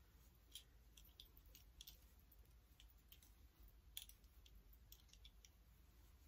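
Near silence: room tone with faint, irregular clicks, the loudest about four seconds in, from a scarf being handled and rearranged by hand.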